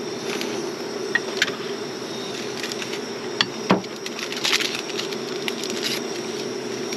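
Steady buzzing hum of a single-burner propane camp stove running under a kettle of water, with a few light clicks and taps as a drinking glass and a plastic bag are handled.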